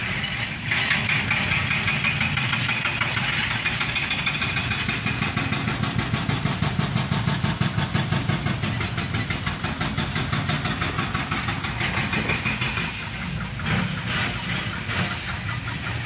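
An engine running steadily close by, with a fast, even beat.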